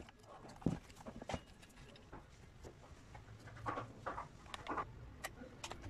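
Scattered light clicks and taps of metal tools and parts being handled on a brush cutter engine, with two sharper knocks about a second in and a cluster of softer clicks later.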